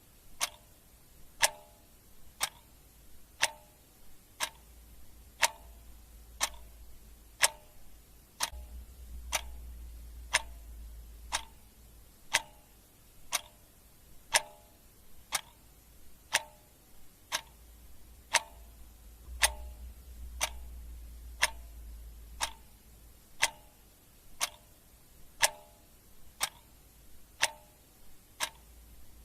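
Mechanical clock ticking steadily, about one tick a second, over a faint low hum.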